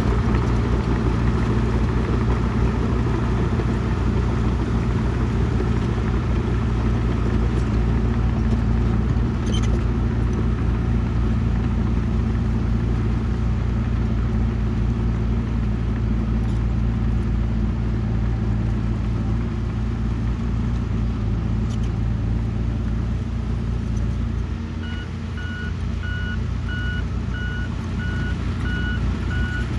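Heavy diesel earthmoving machine running with a steady low drone; about 25 seconds in the engine note drops and a reversing alarm starts beeping at an even pace as the machine backs up.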